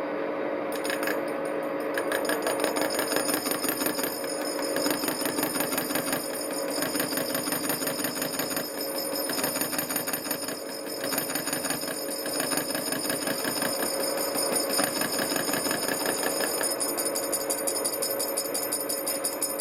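Old Steinel horizontal milling machine running, a steady machine whine over a fast, even rattle.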